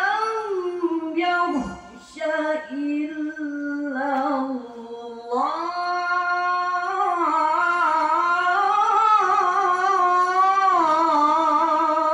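A man reciting the Qur'an in melodic tilawah style: one voice singing long, ornamented phrases that glide and waver in pitch. There is a short break for breath about two seconds in, and a long held phrase begins about five seconds in.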